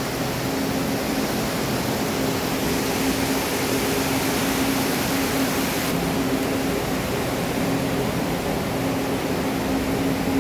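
Steady rushing noise with a low, steady hum underneath.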